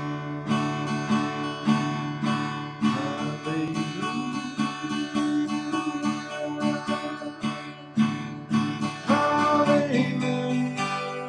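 Steel-string acoustic guitar strummed in a steady, even rhythm, chords ringing, as a song's intro. A wordless voice comes in briefly a few seconds in and again near the end.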